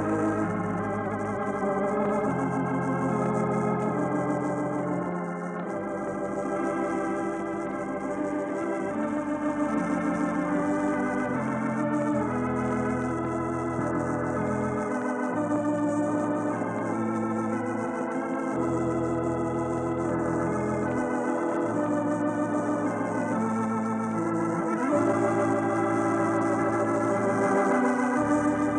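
Organ music playing the program's closing theme: held chords with a slight wavering vibrato over bass notes that change every couple of seconds.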